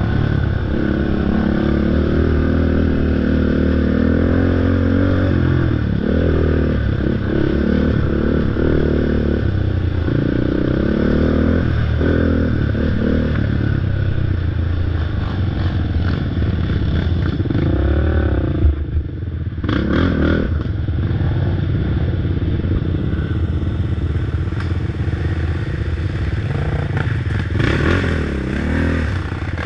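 Crate late model race car's V8 engine running hard at racing speed, its pitch rising and falling again and again as the throttle is opened and lifted.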